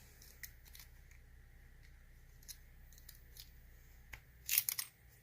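Faint scattered metal clicks from a lock cylinder being gutted by hand, then a short burst of scraping clicks near the end.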